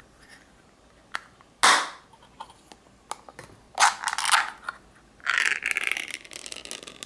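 Ring-pull lid of a small metal food can being pulled open: a click, then a loud short snap about two seconds in as the seal breaks, then scraping and a longer crackling tear near the end as the lid peels back around the rim.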